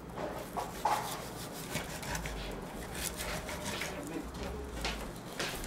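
A knife cutting up raw chicken in a plastic bowl, with hands handling the wet pieces: a run of irregular short cutting and rubbing sounds.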